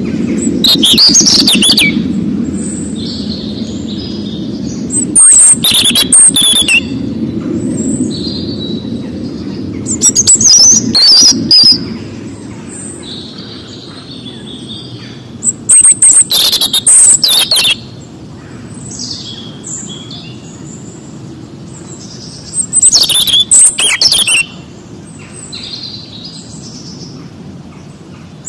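A robin singing five loud, high phrases of one to two seconds each, several seconds apart. Softer bird calls come between the phrases, over a low steady rumble.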